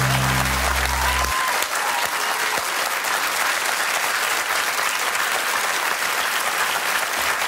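Studio audience applauding steadily as a guest is welcomed on, with a closing music sting that cuts off about a second in.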